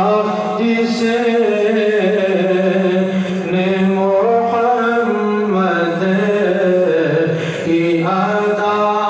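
A man chanting a devotional Urdu naat in long, held melodic notes that step up and down, sung into a microphone.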